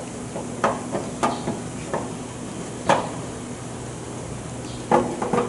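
Sharp clicks and knocks of a 5-port 2-position double solenoid valve being handled and fitted onto a pneumatics training panel, in irregular groups, over a steady low hum.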